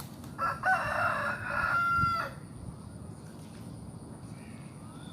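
A rooster crowing once, a call of about two seconds that ends on a held note.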